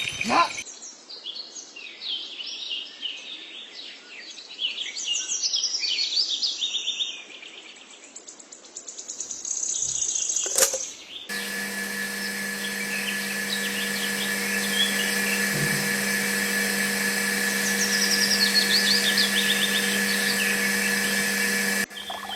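Birds chirping in quick, high calls. About halfway through, a steady machine-like hum comes in and runs under the chirps, then cuts off just before the end.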